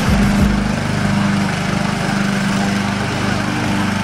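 Ride-on lawn mower's engine running at a steady pitch while the machine drives and mows through long grass.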